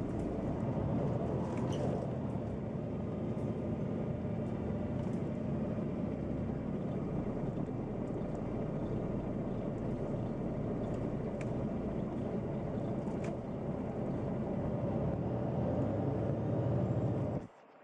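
Neoplan N 4416 Centroliner city bus heard from inside while driving: steady engine and rolling noise, with a few faint clicks. The sound drops away abruptly just before the end.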